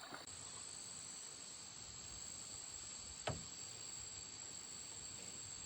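Faint, steady high-pitched trilling of insects such as crickets, with a single short knock about three seconds in.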